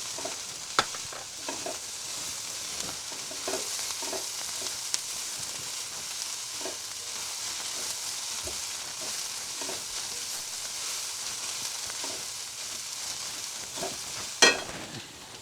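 Sliced carrot, cabbage and onion sizzling steadily on high heat in a non-stick pan while a spatula stirs them, with scattered small scrapes and taps. A sharp knock sounds near the end.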